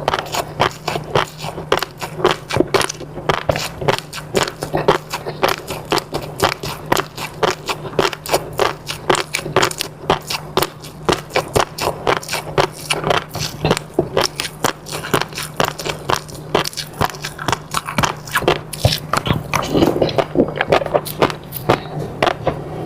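Close-miked eating sounds: a person biting and chewing food, with quick, sharp clicks and crackles several a second.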